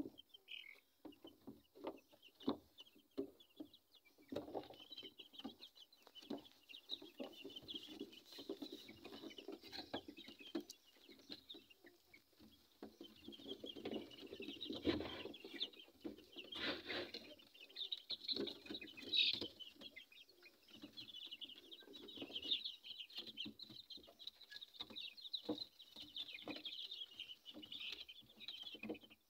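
A crowded flock of young Fayoumi chickens clucking and peeping without a break, high short calls overlapping throughout, with scattered short taps among them.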